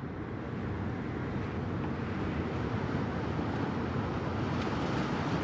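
Steady rushing road and wind noise of a moving car, fading up slowly.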